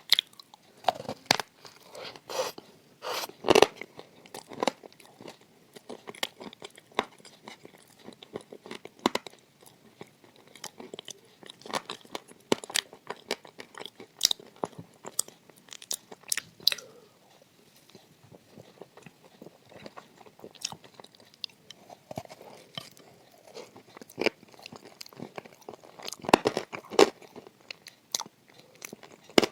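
Close-up biting and chewing of crunchy edible clay: irregular sharp crunches and crackles as it breaks between the teeth. The loudest crunch comes about three and a half seconds in, and the crunching thins out in the middle before picking up again near the end.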